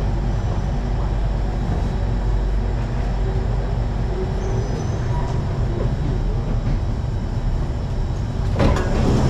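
Interior of a Singapore MRT train carriage: a steady low rumble and hum as the train rolls slowly into the platform. Near the end a sudden louder rush of noise comes in, typical of the train doors opening at the station.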